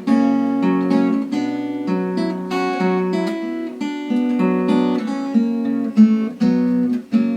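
Acoustic guitar strumming chords, an instrumental break between sung verses of a folk song.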